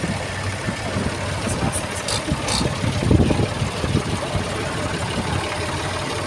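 Vintage Ford tractors' engines running at a slow, steady pace as they drive past in a line, loudest about three seconds in as a Ford 2000 passes close by. A few brief light clicks just before that.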